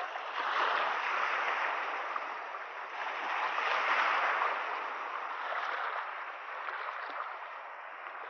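Shallow seawater sloshing and lapping in uneven surges, swelling about a second in and again around four seconds.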